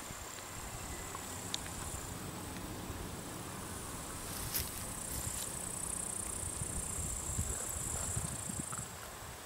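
Insects trilling steadily at a high pitch, cricket-like, growing louder about halfway through and stopping shortly before the end, over a low rumble on the microphone.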